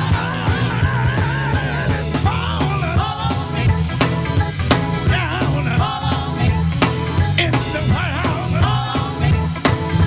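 Live soul band playing: a male lead voice and women's backing vocals sung over drums, electric guitar and keyboard.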